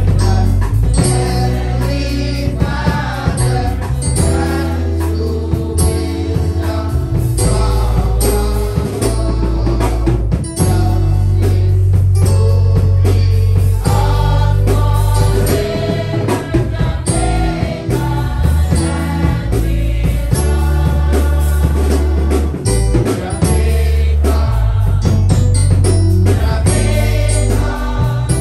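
Gospel song sung by a group of voices, with a man leading on a microphone, over a band with heavy bass and drums.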